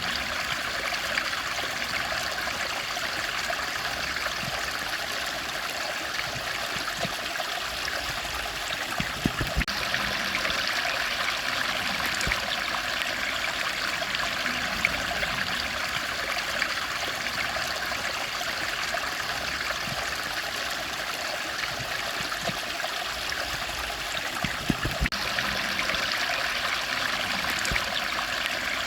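Steady rushing and trickling of a flowing stream, with a few faint knocks about a third of the way in and again later.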